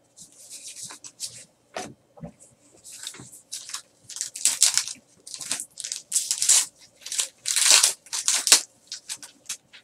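Foil wrapper of an Upper Deck Goodwin Champions trading card pack crinkling and tearing as it is ripped open by hand: a run of irregular crackly rustles, loudest in the second half.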